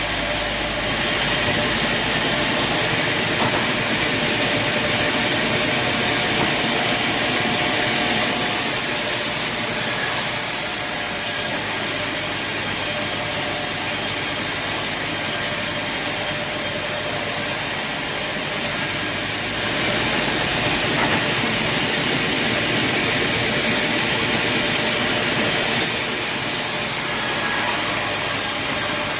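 Band sawmill running, its engine-driven machinery making a loud, steady noise as it saws wood. The tone shifts a few times, with a brief dip about nineteen seconds in.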